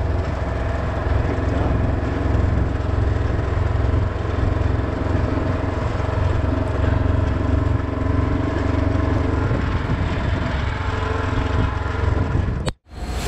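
Side-by-side utility vehicle driving along, its engine running steadily; the sound cuts off suddenly near the end.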